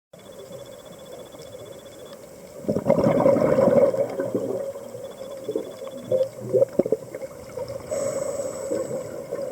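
Scuba regulator breathing heard underwater: a loud gush of exhaled bubbles about three seconds in, then scattered bubble pops, and a second, softer bubbling near the end.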